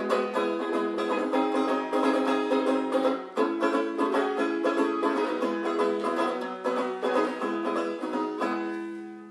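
Ukulele played solo, a busy run of strummed and picked chords. Near the end it settles on a last chord that rings and fades away.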